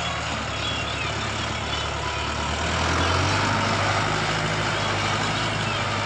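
Mahindra tractor's diesel engine running steadily, speeding up and getting a little louder about halfway through as the front-end loader lifts a full bucket of earth.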